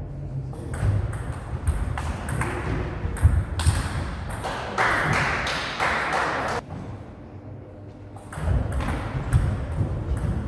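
Table tennis rally: the ball clicking sharply off the rackets and the table in quick succession, then a lull between points, and a new rally starting near the end. A stretch of hiss lasting about two seconds sits in the middle.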